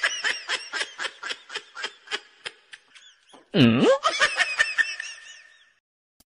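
High-pitched snickering laughter in quick, even pulses, about four to five a second. A loud swooping tone that drops and rises again cuts in about three and a half seconds in, and the laughter then fades away near the end.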